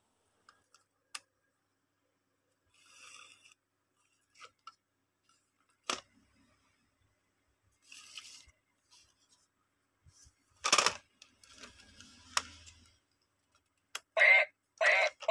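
A battery-powered dancing duck toy being handled and switched on: scattered faint clicks and plastic knocks, a louder scrape about eleven seconds in, then near the end two short bursts of its electronic tune as it starts up.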